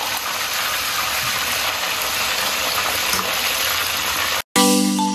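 Raw pieces frying in hot oil in a black wok, a steady sizzle that cuts off suddenly about four and a half seconds in. Bright mallet-percussion music starts just after.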